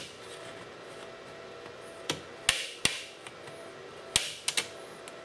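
Plastic screen bezel of an Asus R704A laptop clicking and snapping as its clips are pried loose along the lower edge. There are about six sharp clicks in two small clusters, starting about two seconds in.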